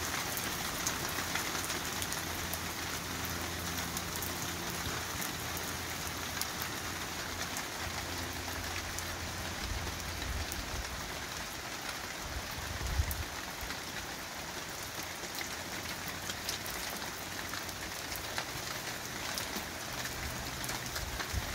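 Heavy rain pouring onto pavement and plastic storage bins: a steady hiss full of close drop hits. A faint low drone runs for a few seconds in the first half, and a single low thump comes about 13 seconds in.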